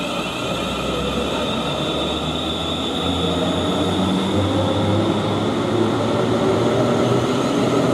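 Siemens Class 350 Desiro electric multiple unit moving past along the platform. Its wheels run on the rails with a steady electric whine over the top, and it grows louder about three seconds in.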